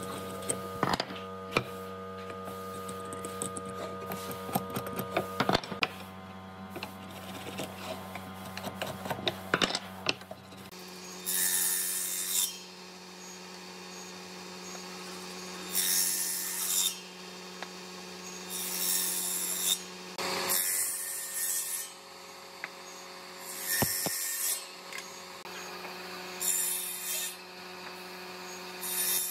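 Motor of a combination woodworking machine's table saw running with a steady hum, with clicks and knocks of wood being handled at first. From about eleven seconds in, boards are fed through the blade in a series of short cuts, each about a second long and much louder and sharper than the hum, roughly every three seconds.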